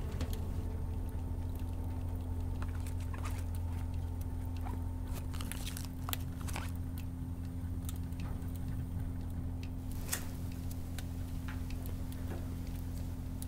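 Room tone: a steady low hum with scattered faint clicks and ticks, the sharpest about ten seconds in.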